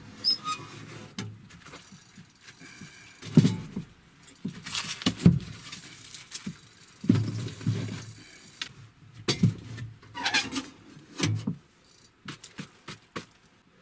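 Round firewood logs being shoved into an iron wood stove: a series of wooden knocks and thumps against the firebox, with scraping and metal rattles from the stove and its door.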